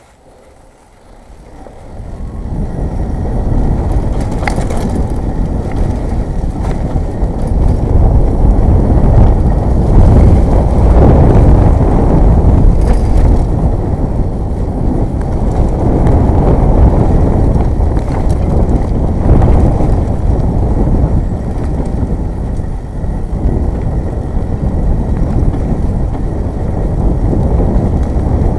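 Ride noise from a Jamis Dragon 29 mountain bike on a muddy trail, picked up by a helmet or bike-mounted action camera: a loud, deep rumble of air rushing past the microphone and the bike rattling over the ground. It starts quiet and swells to full loudness about two seconds in as the bike gets moving.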